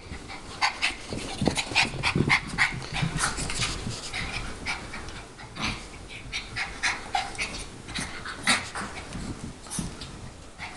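A Chihuahua puppy and a small white dog play-wrestling: quick panting and huffing mixed with many short, sharp scuffling sounds in rapid succession.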